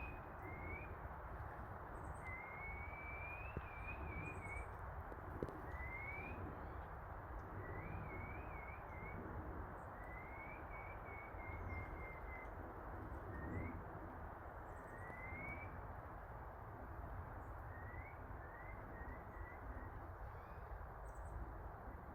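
A bird calling over and over: short rising chirps and brief wavering phrases, one every second or two, over a steady background hiss.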